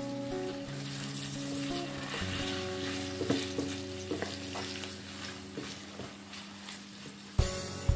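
Julienned carrots, celery and onion sizzling in hot oil in a steel wok as they are stir-fried with a silicone spatula. There are a few light clicks, then two sharp knocks against the pan near the end.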